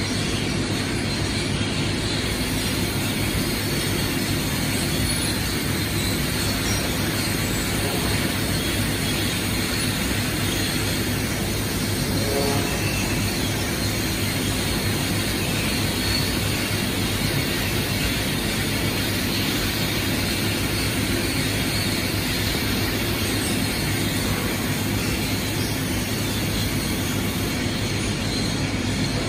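Steady running noise of a robotic glaze-spraying booth: a continuous hiss with a low, even hum underneath, unchanging throughout.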